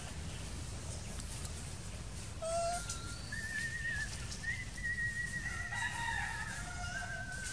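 High, thin, wavering whistled animal calls, several overlapping, starting about two and a half seconds in over a steady low rumble.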